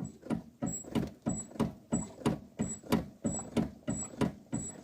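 A Jeep's front upper control arm and ball joint being worked back and forth by hand, creaking and knocking about three times a second. Each stroke is a short creak that falls in pitch.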